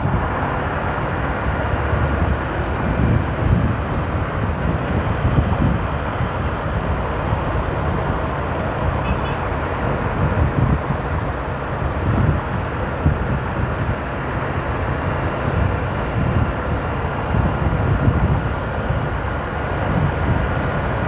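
Motorcycle riding along an expressway: steady engine and road noise under heavy, gusting wind buffeting on the microphone.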